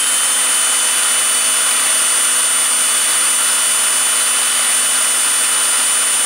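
Electric drill running steadily at high speed with a high whine, its pitch dipping slightly just after the start. The drill is plausibly milling out a stripped screw in a K-126 carburettor.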